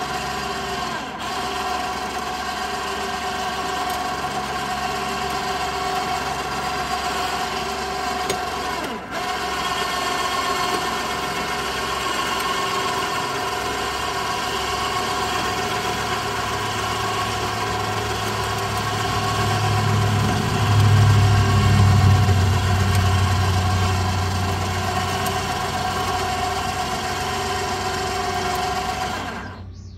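Electric ATV winch motor running steadily, slowly reeling its cable with a steady geared whine. A deeper low hum swells about two-thirds of the way through, and the motor cuts off just before the end.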